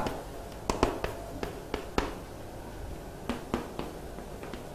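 A string of short, sharp, irregular taps and clicks from writing on a board, a dozen or so, more closely spaced in the first couple of seconds.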